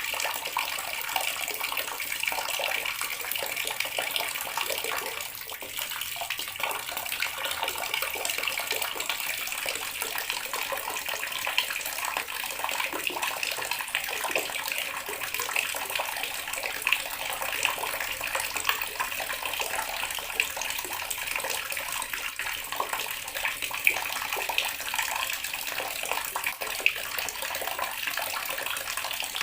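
Water running steadily from a tap and splashing, an even rushing hiss with fine splatter throughout.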